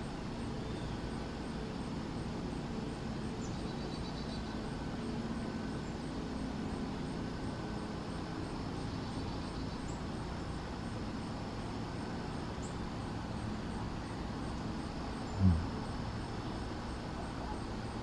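Steady low outdoor background rumble, with a few faint, short, high bird chips and one short low thump near the end, the loudest sound.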